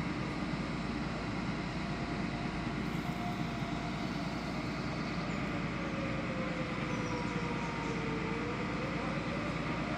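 Emergency air-raid-style warning siren sounding faintly in a test, its wail slowly falling in pitch and then rising again near the end, over steady background noise.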